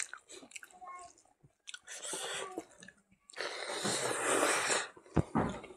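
Close-miked eating: wet lip smacks and chewing of rice and pork, with a long, loud breath out through the mouth about three seconds in, lasting a second and a half, and a sharp smack near the end.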